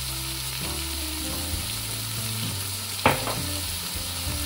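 Sliced onions sizzling in oil and butter in a kadai over a medium flame, a steady frying hiss, with one sharp knock about three seconds in.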